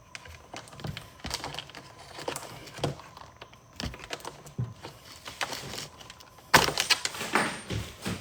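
Irregular small clicks and taps of hard plastic being worked at, a key fob case being pried at with a makeshift tool in place of a flathead screwdriver, with a quicker, louder flurry of clicks near the end.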